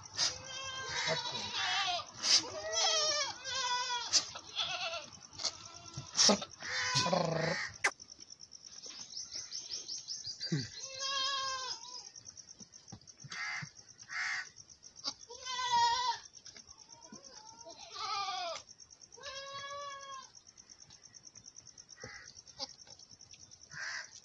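Goats bleating over and over in high, quavering calls, crowded together for the first eight seconds and then coming every couple of seconds.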